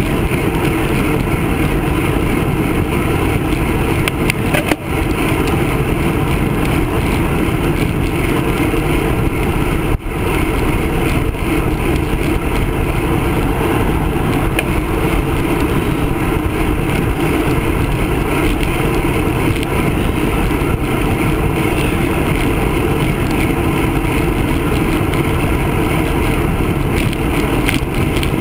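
Steady wind rush over the microphone of a handlebar-mounted camera on a moving road bike, mixed with tyre noise on the asphalt.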